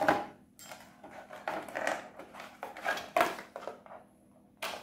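Rustling, scraping and knocking of a neckband earphone's white box tray and packaging being handled on a counter, with a few sharp clicks, a short quiet spell about four seconds in, and a louder knock near the end.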